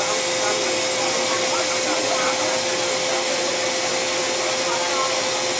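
Loud, steady hiss of compressed air leaking from a faulty door on an MTR M-Train, with a steady tone running underneath; the air leak is the sign of a broken door part, and the uploader thinks more than one part has failed.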